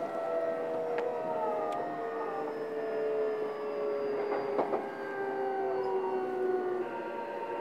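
Running sound inside a JR East E233-series electric train's motor car: the traction motor and inverter whine with several tones slowly falling in pitch as the train slows, over steady rail and wheel noise. A few sharp clicks sound, two of them close together about halfway through, and the whine's pitch pattern changes near the end.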